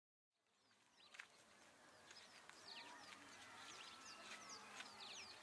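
Faint outdoor ambience fading in from silence, with many birds chirping and calling in quick, short notes.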